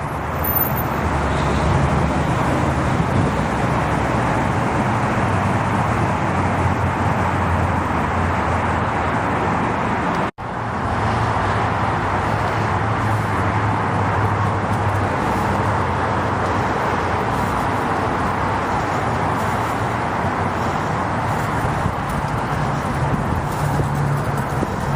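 Steady road traffic noise with a low engine hum underneath, cutting out for an instant about ten seconds in.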